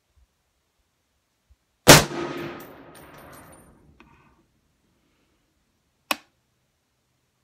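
Smith & Wesson M&P 10 rifle firing a 7.62x51 NATO round: one loud shot about two seconds in, with a long echoing tail and a high metallic ring that dies away over about two seconds. A second, quieter and shorter shot cracks about four seconds later.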